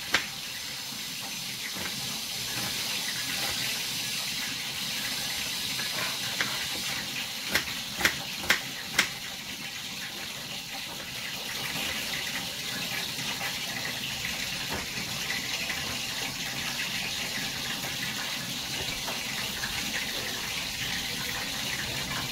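Knife cutting onion on a wooden cutting board: a few sharp taps, four close together about eight seconds in, over a steady rushing hiss.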